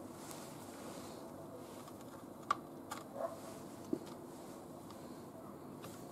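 A few faint clicks and taps of fingers working on a plastic cutting board as licorice strips are pressed onto an opened Oreo cookie, over a low steady room hum. The sharpest click comes about two and a half seconds in, with two softer ones shortly after.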